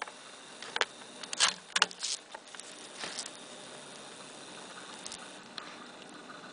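A cluster of sharp clicks and rustles in the first three seconds from the camera being handled and swung around, then a faint steady background hiss with a stray click or two.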